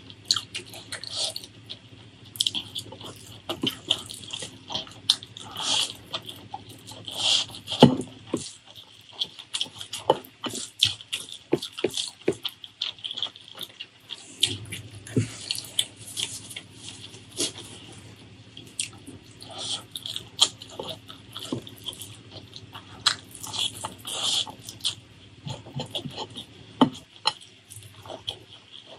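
Close-miked wet, sticky squelches and smacks of curry and rice being squeezed and mixed by fingers and eaten, an irregular run of short clicks.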